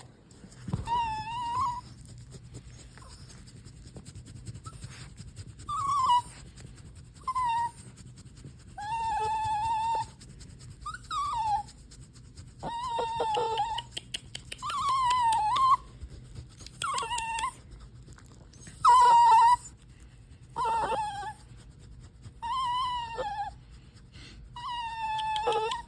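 A puppy whining: about a dozen high-pitched whines, each around a second long, coming every couple of seconds, some bending up or down in pitch.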